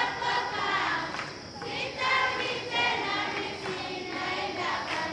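A group of secondary-school students singing a prayer song together as a choir.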